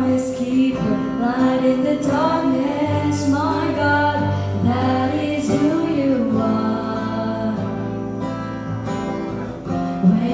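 Song with acoustic guitar and a female singing voice.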